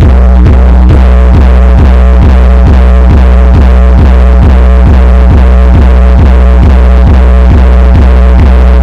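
Bass-heavy electronic music played loud through a handmade 200-watt mono amplifier on a sound test. A deep, steady bass tone pulses evenly at about three beats a second.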